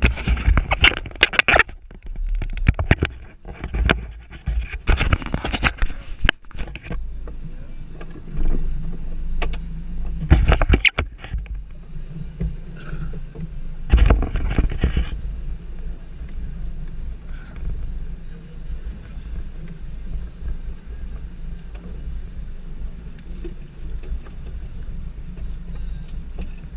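Motorboat running on the water: a steady low rumble, with loud rushing bursts in the first fifteen seconds that then settle into an even drone.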